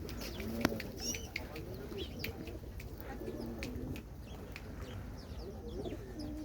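Feral pigeons cooing repeatedly in low, rolling calls while a flock feeds, with many short high chirps from small birds mixed in and a single sharp click near the start.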